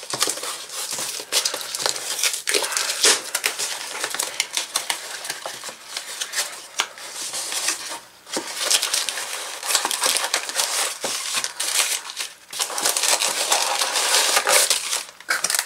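Packaging crinkling and rustling as a small box is opened and its packing material handled, with many small clicks and two short pauses.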